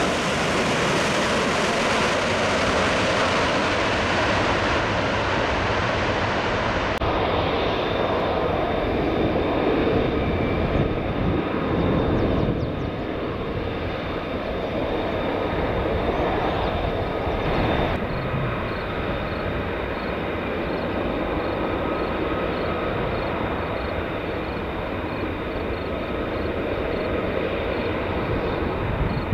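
Jet engines. First the Airbus KC2 Voyager's twin turbofans on its landing roll, a loud, even rush. After a sudden cut about seven seconds in comes the steady engine whine of taxiing F-35 Lightning II fighters, with thin high tones held over a lower rumble.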